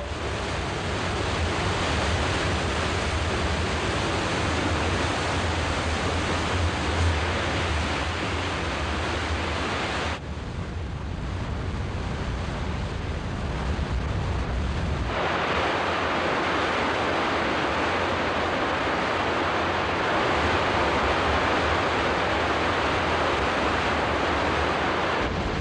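Sea water and wind rushing past a destroyer under way at speed: a steady rush of water and spray with a low rumble beneath. About ten seconds in it turns duller for a few seconds, then comes back brighter and hissier from about fifteen seconds on while the rumble fades.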